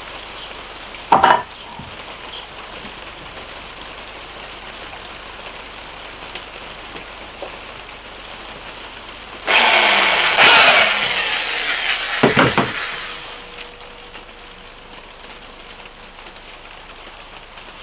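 Corded electric drill with a long spiral wood bit boring into a log, running loud for about four seconds past the middle of the stretch, with a knock partway through. Earlier comes a single sharp knock of wood on wood, and steady rain hisses throughout.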